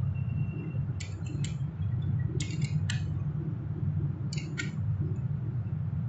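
Metal spanner clinking against a scooter's front axle nut: a few short, sharp metallic clicks in three small clusters, about a second in, around two and a half seconds in, and near four and a half seconds. A steady low hum runs underneath.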